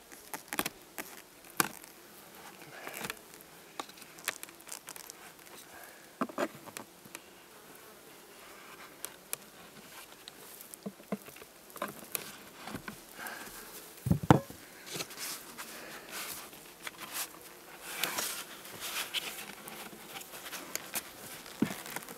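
Honeybees buzzing around an open hive, with scattered clicks and knocks as the wooden hive parts are shifted, and one heavier thump about fourteen seconds in.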